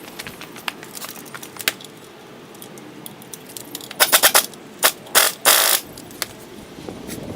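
Hand tools working on the car's seat hardware: a quick run of about five sharp clicks about four seconds in, two more clicks, then a short rattle.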